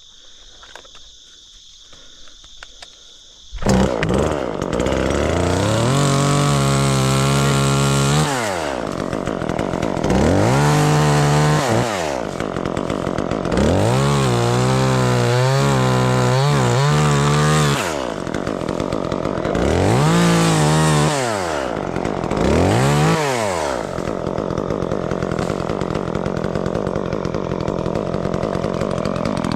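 Chainsaw starting up about three and a half seconds in, then revved to full throttle about five times, each rise falling back toward idle, and running lower and steadier near the end while limbing out a tree. Crickets chirp steadily before the saw starts.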